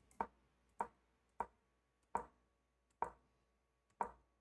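Online chess board's piece-move sound, a short wooden click, played six times about a second apart as the moves are stepped through one by one.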